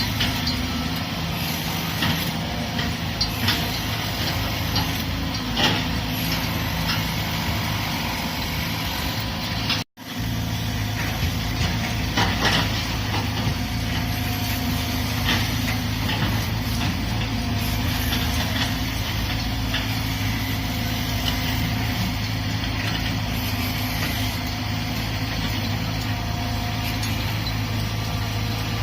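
Heavy diesel construction machinery, such as an excavator, running steadily with scattered clanks and knocks. The sound cuts out for a moment about ten seconds in.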